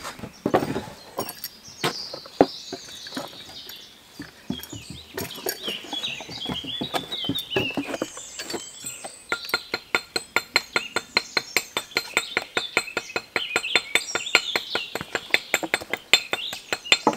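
Birds singing, with scattered clinks of metal pipe fittings being handled. From about halfway through, a fast, even run of clicks, around six a second.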